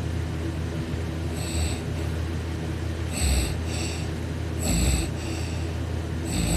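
A sleeping person's loud snoring, the soft palate vibrating: a strong snore about every one and a half seconds, each followed by a weaker one, over a steady low hum.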